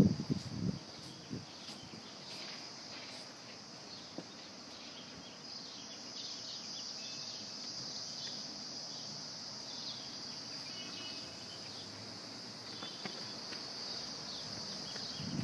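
Quiet outdoor ambience: a steady high-pitched hiss running throughout, with a few faint short chirps now and then.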